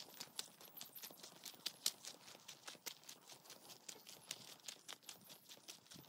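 Faint footsteps on a gravel dirt road, walking uphill at a steady pace: a quick, continuous run of short scuffing clicks.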